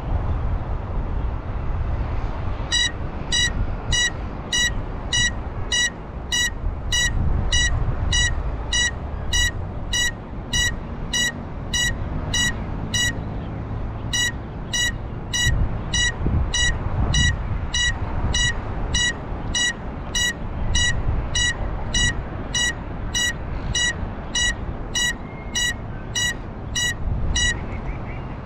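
Buzzer on a landed Cinelog 35 FPV quad beeping about twice a second, starting a few seconds in, pausing briefly about midway and stopping near the end, over the rumble of wind on its GoPro's microphone.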